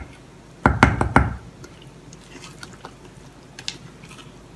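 Wooden spoon stirring thick cake batter in a stainless steel saucepan, with a quick run of four knocks of the spoon against the pan about a second in, then faint scraping.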